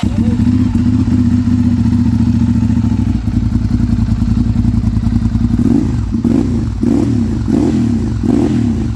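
Ducati Monster 796's L-twin engine running through an Arrow slip-on exhaust, just started and idling steadily. It is then revved in about five quick throttle blips, each rising and falling, over the last few seconds.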